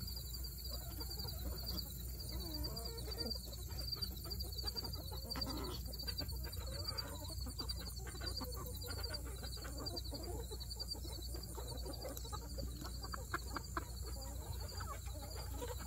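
A flock of chickens clucking and murmuring in many short, overlapping calls, with scattered small ticks among them. A high, rapidly pulsing chirp runs steadily underneath.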